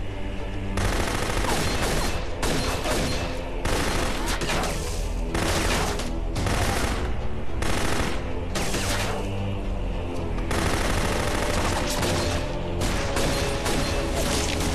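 Gunfight with several guns firing in rapid volleys, broken by short pauses.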